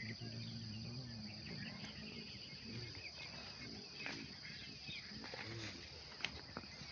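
Faint field sound of insects chirring steadily and high, likely crickets, with a few low calls near the start and again about two thirds through, and a couple of sharp clicks near the end.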